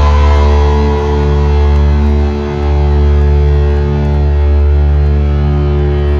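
Live rock band playing loud: electric guitars and bass holding sustained chords over a heavy, booming low end.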